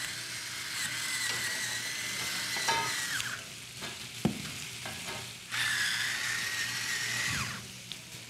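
Electric salt-and-pepper grinder run twice, for about three seconds and then about two, a steady motor whine over the hiss of grinding. Underneath, vegetables and bacon-wrapped hot dogs sizzle on the hot plates of an electric contact grill and griddle, with one sharp tick about halfway through.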